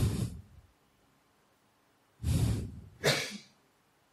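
Three loud puffs of breath close to the microphone, a single one at the start and two in quick succession near the end.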